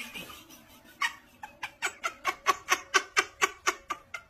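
Dog splashing water in a plastic tub, about five quick, even splashes a second as it paddles its front legs, starting about a second in.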